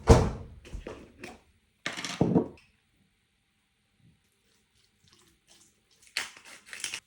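Kitchen food-preparation noises: two short bursts of clattering and rustling, the first right at the start and the second about two seconds in, then a near-silent gap, then a cluster of quick handling noises near the end.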